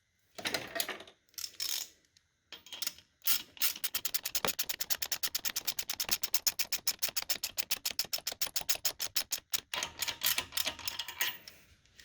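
Ratchet wrench clicking rapidly, about six clicks a second for several seconds, winding down a stud-mounted valve spring compressor to compress a V8 valve spring. A few tool knocks come before the clicking starts.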